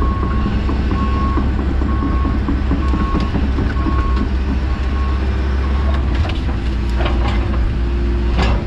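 Diesel engine of heavy land-clearing equipment running steadily, heard from inside a machine cab, with a backup alarm beeping about every 0.8 seconds that stops about five seconds in. A few sharp knocks come near the end.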